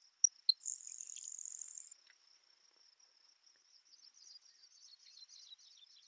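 Grasshopper sparrow singing once: two sharp ticks, then a high, thin, insect-like buzz lasting about a second. Faint, high, falling jingling notes follow in the background, from a Sprague's pipit.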